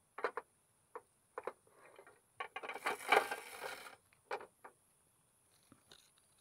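Clear plastic box with a frog inside being handled: a series of sharp plastic clicks and taps, about a second of scraping rustle near the middle, then two more taps.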